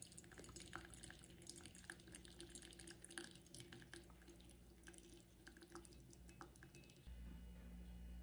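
Near silence: faint, scattered light clicks and ticks over a low steady room hum, the hum growing slightly louder about seven seconds in.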